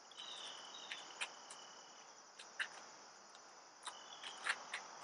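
Insects chirring steadily at a high pitch, with a thin steady whistle-like tone twice and a few short sharp ticks.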